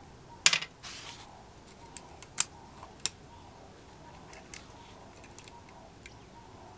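Handling noise of hand tools on a vintage electric drill: a few sharp metallic clicks and clinks, loudest about half a second in and again twice in the next few seconds, then faint ticks, as a screwdriver and the drill's housing are handled on a rubber workbench mat.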